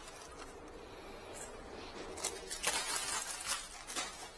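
Hands handling small plastic ink-refill parts while changing colours: a stretch of rustling and quick light clicks about halfway through, then a few single clicks.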